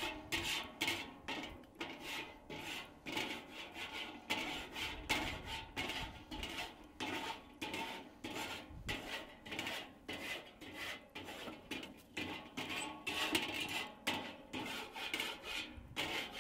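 Metal grill scraper rasping back and forth along the hot wire cooking grate of a charcoal kettle grill, in quick, evenly repeated strokes, a few a second. The strokes are scraping the heated grate clean of stuck-on gunk.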